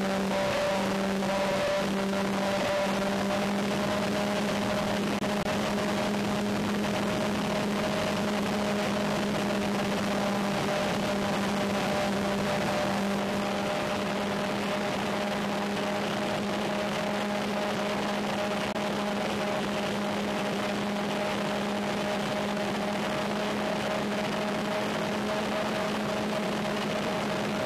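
Twin brushless electric motors and propellers of an RC plane (Multiplex Twin Star II) running at a steady cruise throttle, a constant hum with a steady whine over a rush of wind hiss.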